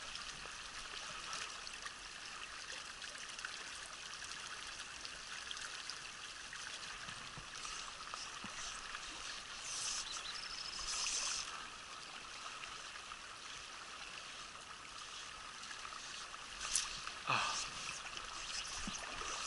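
Mountain river water running steadily over rocks, an even rushing hiss. A few brief louder sounds break through about two-thirds of the way in and again near the end.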